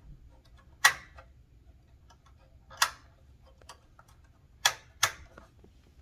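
Smith Corona Super-G manual typewriter's mechanism clacking sharply four times, the last two close together, as the tab key is worked.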